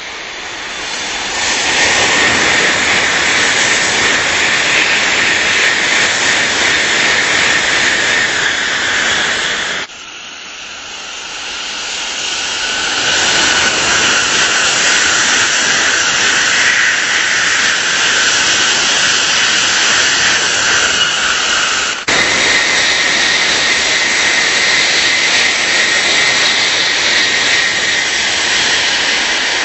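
Tokaido Shinkansen bullet trains passing at high speed: a loud rushing noise with a high steady whine on top. It builds over the first couple of seconds and breaks off suddenly about ten seconds in, then builds again for the next train. There is another sudden break a little past twenty seconds.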